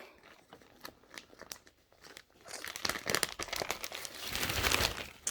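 Packaging crinkling and rustling as a t-shirt is handled and unwrapped: sparse crackles at first, then a denser, louder stretch of crinkling from about halfway in.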